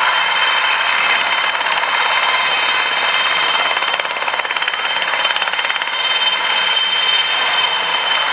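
IAR 330 Puma military helicopter hovering close by: the steady high whine of its twin turboshaft engines over a rapid, even chopping of the main rotor blades.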